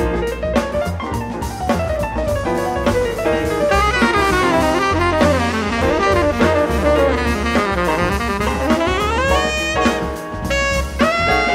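Live jazz ensemble playing: drum kit and double bass under piano and saxophone, with fast runs sweeping up and down in pitch through the middle and a long held note near the end.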